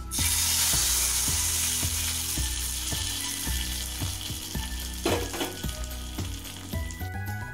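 Hot tadka of ghee and oil with cumin, dried red chillies and curry leaves poured onto spinach-and-chickpea curry: a loud sizzle that starts suddenly and slowly dies away. Background music with a steady beat runs underneath.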